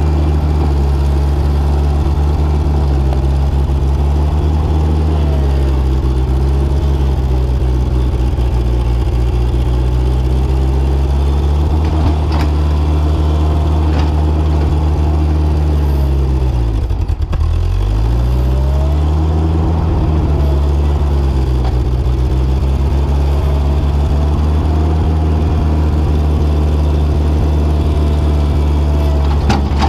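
Mobility Dipper 4x4 loader's engine running as the machine moves, close to the machine. Its pitch drops sharply a little past halfway, as the engine slows almost to a stop, then climbs back up.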